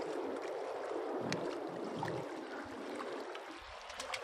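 Steady wash of lake water lapping against a rocky shoreline, with a small splash near the end as a released rock bass drops into the shallows.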